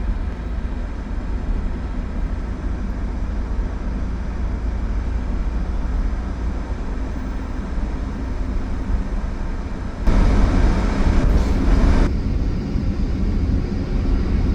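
Steady road and engine rumble of a moving vehicle, heard from inside. About ten seconds in the noise swells louder and brighter for a couple of seconds, then settles back.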